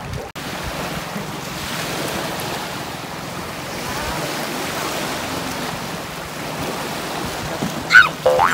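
Small waves breaking and washing up a pebbly shore, with wind on the microphone. Near the end, a brief loud voice cuts in.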